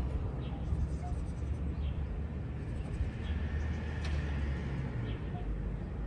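Outdoor ambience: a steady low rumble with faint, short chirps of small birds every second or so.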